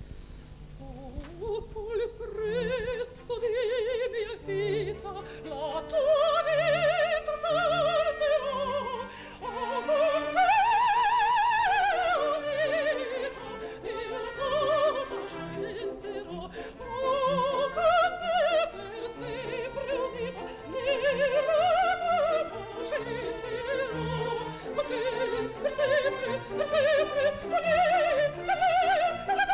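Operatic soprano singing with a wide vibrato over a symphony orchestra, climbing to a long high note about eleven seconds in.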